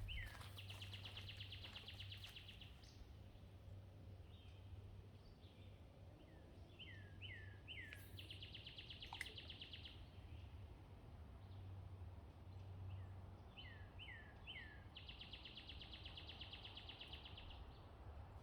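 A songbird singing faintly, the same song three times, at the start, about 8 seconds in and about 15 seconds in: each is a few short falling notes followed by a rapid trill lasting about two seconds. A faint steady low hum runs underneath.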